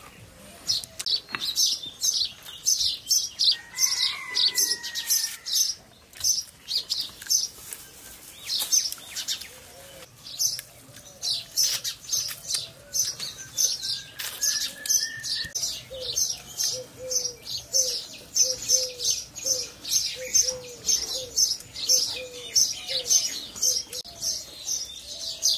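Small birds chirping rapidly and continually, many high chirps a second. In the second half a lower call repeats about twice a second beneath the chirping.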